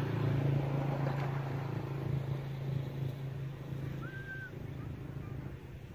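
A motor's steady low hum, slowly fading, with a short high chirp about four seconds in.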